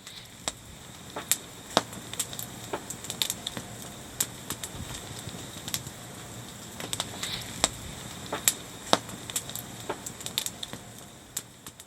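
Wood campfire crackling, with irregular sharp pops over a steady hiss; it fades in at the start and fades out near the end.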